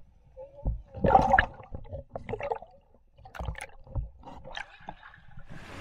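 Water gurgling and splashing in short irregular bursts, with low bumps among them.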